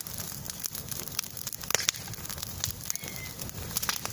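Wood bonfire burning and crackling, with frequent sharp irregular pops.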